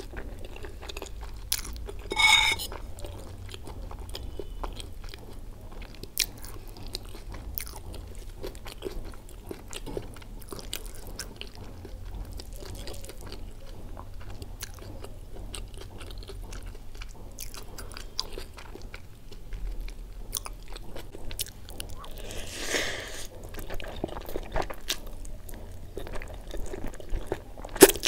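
Close-miked chewing and wet mouth sounds from eating fried Maggi instant noodles with fried egg, with many small clicks throughout. A louder noisy burst comes about two seconds in and another around twenty-three seconds, and a sharp click near the end.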